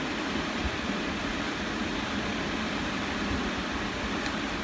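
Steady background hiss and hum of room noise, even and unchanging, with a couple of faint ticks.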